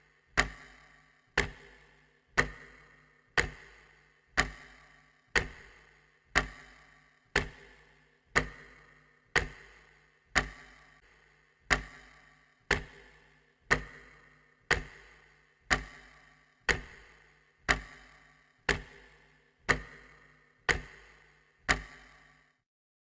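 Clock ticking about once a second, each tick a sharp click with a short ring; the ticking stops near the end.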